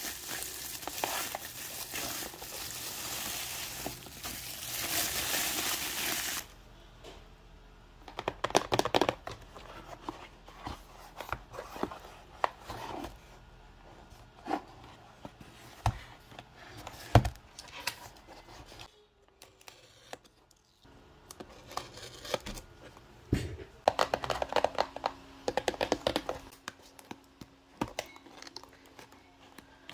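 Bubble-wrap packaging crinkling densely as it is pulled off a cardboard box, stopping abruptly after about six seconds. Then scattered rustles and a few sharp knocks as the box is handled, and cardboard tearing and rustling near the end as the box's taped flaps are torn open.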